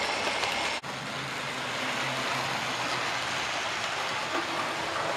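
Model railway trains running around the layout: a steady noise of electric motors and wheels on the track, with a brief break about a second in.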